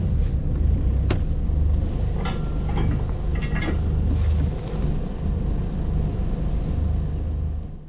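A sailboat's inboard engine idling with a steady low rumble while the boat is being moored, with a sharp click about a second in and a few short clinks of deck gear between two and four seconds in. It cuts off suddenly at the end.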